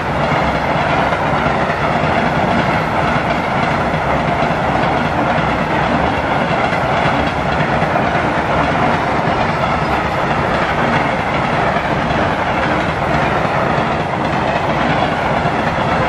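A long freight train of hopper wagons rolling past close by: a steady, loud noise of steel wheels running on the rails, unbroken throughout.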